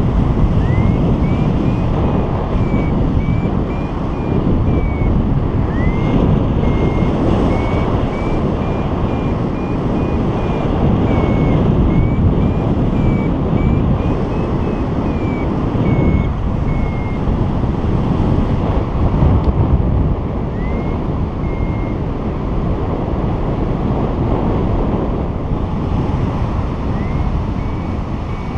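Wind rushing hard over the camera microphone in flight, with a paragliding variometer's short high beeps repeating over it and now and then sliding up in pitch: the vario's climb tone, signalling rising air.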